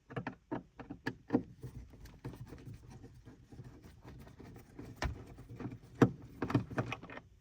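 Irregular clicks and light knocks of a screwdriver and the plastic sun visor mount as the visor's mounting screws are undone, with the sharpest knock about six seconds in.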